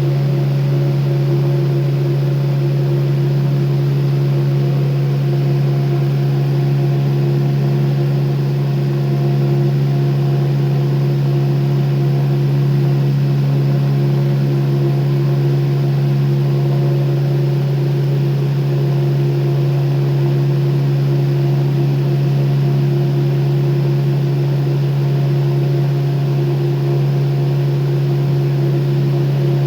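Electric fan running steadily and loudly: a constant low motor hum with a few higher tones over an even rush of air.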